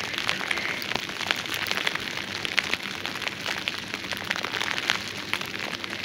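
Heavy wet snowfall pattering: a dense, irregular run of small ticks over a steady hiss, like light rain.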